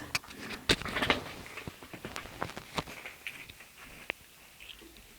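A few short sniffs from a runny, allergy-stuffed nose among scattered small clicks and rustles, fading quieter toward the end.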